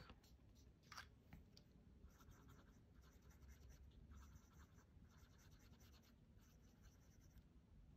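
Faint scratching of a vintage Esterbrook J fountain pen nib on paper, in short repeated strokes from about two seconds in. The nib does not glide and drags on the paper: a scratchy nib with tight tines.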